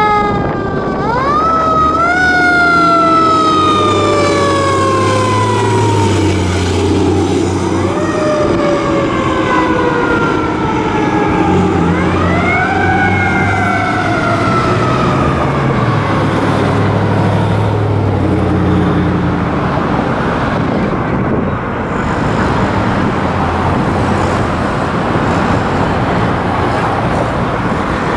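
A fire engine siren, on a 1995 KME pumper responding to a call, wails three times: each wail rises quickly, then winds down slowly over several seconds. After about 18 seconds the siren dies away, leaving steady traffic noise.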